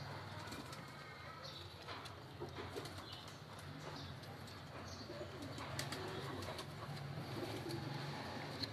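Faint, low cooing bird calls, coming and going, with a few light clicks.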